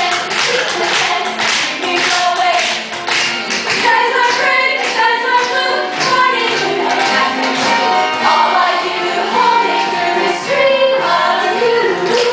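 A musical number: a chorus of voices singing a show tune over band accompaniment with a steady percussive beat.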